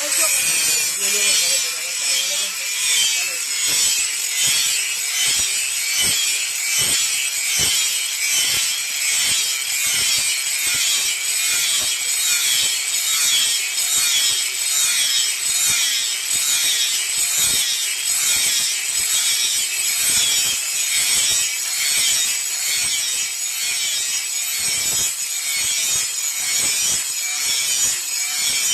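A steel blade being hand-filed, the file rasping back and forth in a steady rhythm of strokes.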